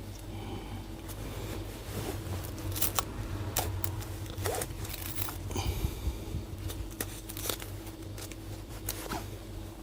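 Scattered light clicks, taps and rustling from hands handling laptop screen parts and packaging, over a steady low hum.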